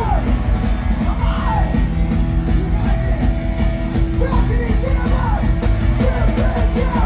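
Pop-punk band playing live through a concert PA, loud, with distorted guitars and drums and yelled vocals over them.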